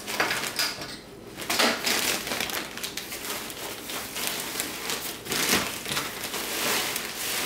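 Plastic bag of pumice being handled and opened, the plastic crinkling and rustling in irregular bursts.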